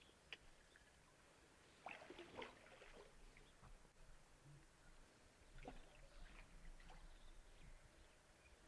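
Near silence, broken by a few faint rustles and knocks: one short click near the start, then brief clusters around two seconds in and again around six seconds in.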